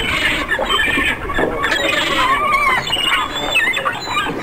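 Animal squeals and chirps: many short, high-pitched calls that bend up and down in pitch, one after another without pause.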